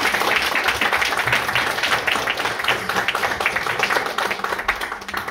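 Audience applauding: dense clapping from a roomful of people, starting to die away near the end.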